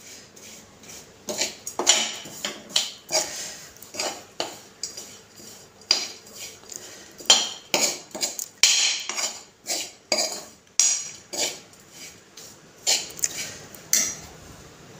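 Metal spoon scraping and clinking against a metal kadai as a dry mix of coarsely ground roasted peanuts, spices and chopped coriander is stirred, in quick irregular strokes.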